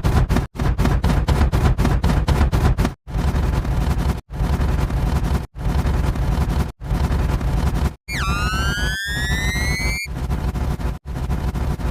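A string of short stock sound effects spliced together with abrupt cuts about every second: first a dense rapid crackle like gunfire, then a run of noisy clips, and near the end a rising, siren-like whistling tone lasting about two seconds.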